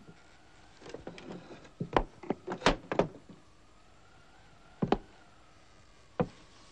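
Irregular sharp knocks and clicks: a quick cluster over the first few seconds, then two single knocks a second or so apart.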